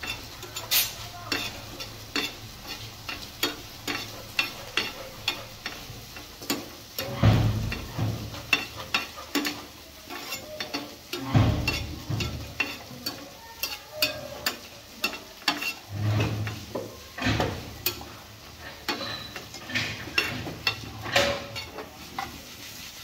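A spatula stirring and scraping through food frying in oil in a pan, with the oil sizzling underneath. Quick scrapes come a few times a second, with a handful of heavier knocks against the pan.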